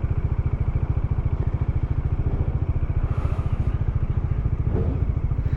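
Single-cylinder motorcycle engine running steadily, a fast, even beat of exhaust pulses that holds the same speed throughout.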